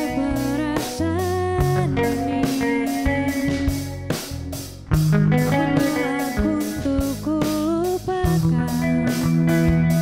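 Live rock band playing: a woman sings the lead melody over electric guitars, bass guitar and a drum kit keeping a steady beat.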